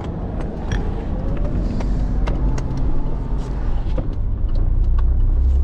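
Car engine and road rumble heard from inside a car pulling away, growing louder toward the end, with scattered sharp ticks of things striking the car.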